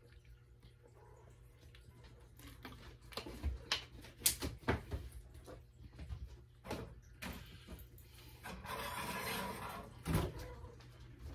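Kitchen handling noises: a string of short knocks and clicks, a rustling stretch of about a second and a half, then a thump near the end as the refrigerator door is pulled open.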